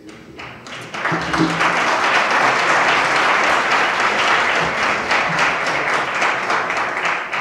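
Audience applauding, swelling within the first second and stopping near the end.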